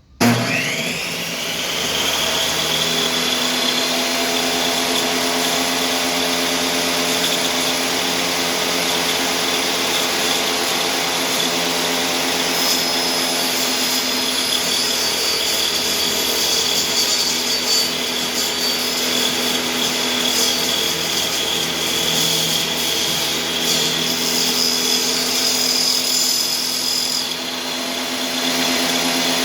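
Table saw starting up, its motor whine rising to speed within about two seconds, then running steadily. From about 12 to 24 seconds in, a harsher, uneven sound joins the run as the blade cuts a rabbet groove in a wooden board.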